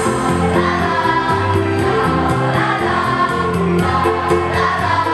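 School choir singing in parts, holding and changing sustained notes, with a light steady tick of about four a second running underneath.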